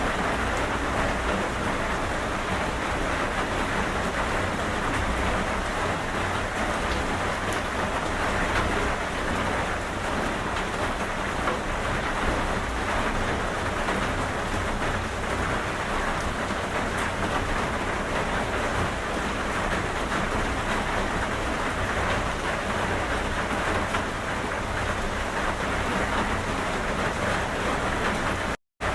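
Steady, even rain falling, a dense hiss of many fine drops with a low rumble underneath. The sound cuts out completely for a moment just before the end.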